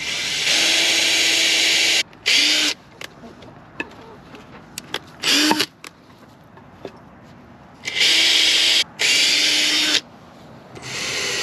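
Ryobi cordless drill running in separate bursts as it drives screws into a wooden bar: one run of about two seconds, a few short blips, then three runs of about a second each near the end.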